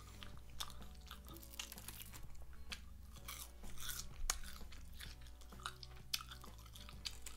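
Close-up chewing of crispy fried chicken, with irregular crunching clicks of the skin between the jaws. Soft background music plays underneath.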